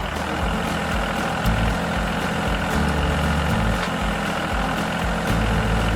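A vehicle engine running steadily, its low note shifting now and then.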